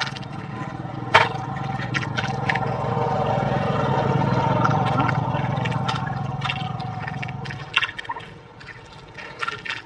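Bare hands working wet mud and water in a dug hole: a steady gurgling, sloshing wash that swells and then drops away about eight seconds in, with scattered sharp clicks and scrapes of soil.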